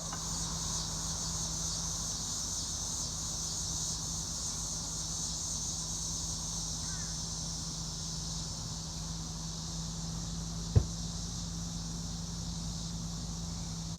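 Steady, high-pitched chorus of summer insects such as crickets, with a low steady hum underneath and a single short knock near the end.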